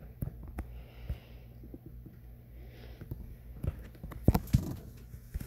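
Quiet room tone with a steady low hum, a couple of soft breaths, and scattered small clicks and taps. The loudest taps come as a close pair a little past four seconds in.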